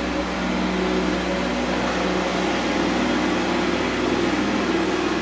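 A steady mechanical hum with several low tones held constant throughout.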